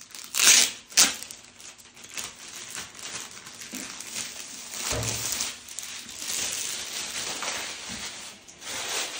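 Clear plastic sleeve around a rolled diamond painting canvas crinkling and rustling as it is handled and opened. There are two loud sharp crackles about half a second and a second in, then longer stretches of rustling.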